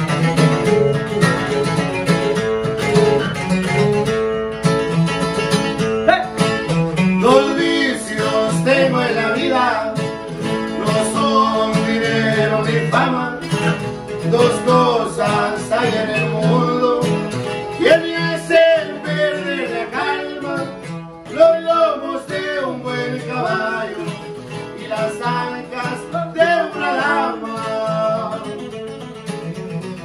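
Two Takamine acoustic guitars playing: a requinto picks a melody over a guitar playing chords.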